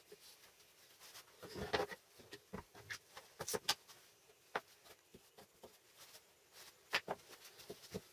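Scattered light clicks and taps, with a short rustling scrape about two seconds in and a few sharper clicks later on.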